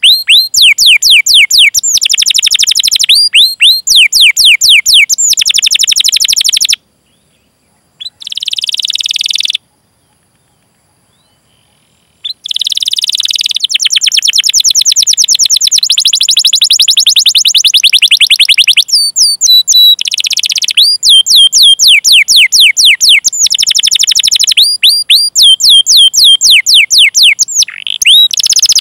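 Domestic canary singing: loud series of quick downward-sweeping 'cuit cuit' chirps alternating with fast rolling trills. The song stops briefly about seven seconds in and again for about three seconds near ten seconds, then resumes.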